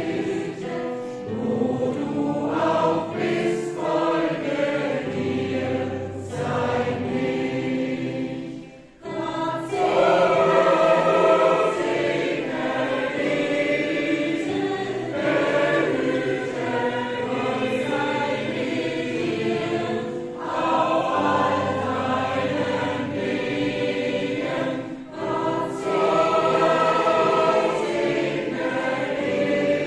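Mixed gospel choir singing in harmony, many men's and women's voices together, with short breaks between phrases about nine seconds in and again near 25 seconds.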